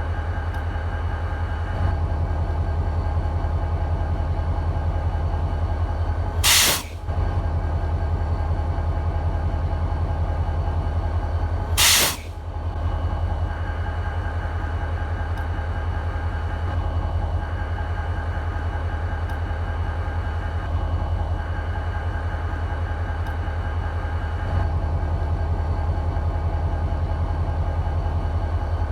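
BNSF SD40-2 locomotive's EMD 16-645 two-stroke V16 diesel idling with a steady, fast-pulsing low drone. Twice, about six seconds in and again near twelve seconds, a short loud blast of air hisses out of the locomotive's air system.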